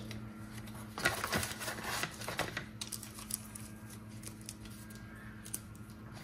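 Light clicks and taps of small plastic lens guards and packaging being handled by hand and set down on a stone countertop, with faint rustling of card and paper from the accessory box.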